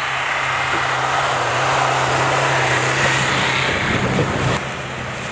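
JAC T8 pickup truck driving through deep snow and passing close by: a steady engine note under load with tyres churning snow, the noise swelling as it approaches and dropping away suddenly just after it passes, near the end.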